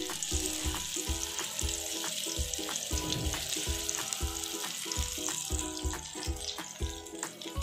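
Stuffed okra sizzling in a little warm oil in a grill pan as the pieces are laid in, under background music with a steady beat.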